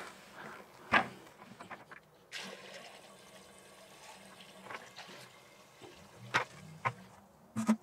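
Water poured from a plastic bucket into a funnel and running down a new PVC drain pipe, a water test of the pipe's joint with the old cast iron stack; the pouring starts about two seconds in, with a few short knocks.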